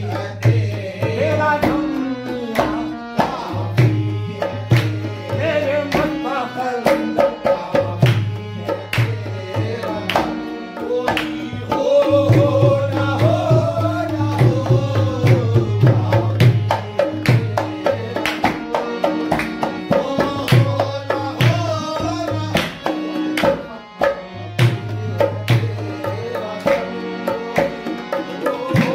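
Qawwali-style Sufi devotional music: tabla strokes keeping a dense rhythm under a melodic line that bends up and down in pitch, with a low bass tone that comes and goes.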